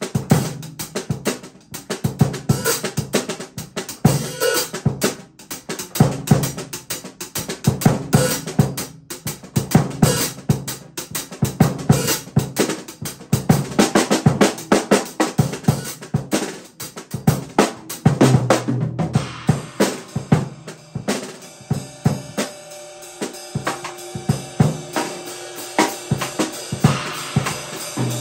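Acoustic drum kit played in a groove: bass drum, snare with rimshots, hi-hat and cymbals. The playing thins to lighter strokes about two-thirds of the way through, then fills out again near the end.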